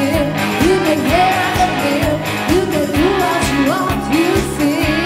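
Pop dance music: a voice singing over a steady beat.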